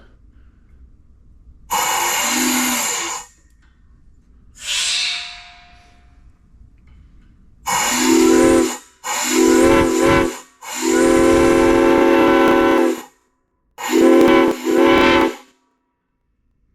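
3D-printed six-chime Santa Fe steam whistle blown on compressed air fed through a half-inch valve, sounding a chord of several tones in a series of about seven blasts; the longest lasts about two and a half seconds, and the last two come close together. With the full air volume it now gets, it is really loud.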